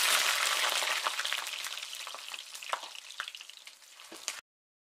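A sizzling, crackling hiss like food frying in oil, loudest as it starts and fading over about four seconds, with scattered sharp crackles, then cutting off abruptly.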